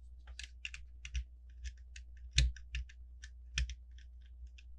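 Hard plastic Lego pieces clicking and tapping as they are handled and fitted onto studs: a scatter of small irregular clicks, with louder knocks about two and a half and three and a half seconds in.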